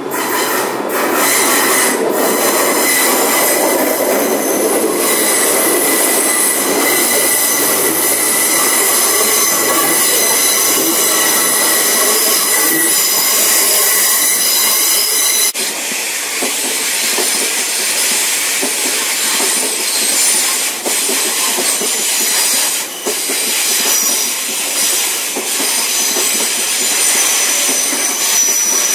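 A diesel multiple unit passenger train running past a station platform, with loud, steady rail and running noise and a high whine over it. About halfway through the sound changes abruptly to more train and track noise from further down the line.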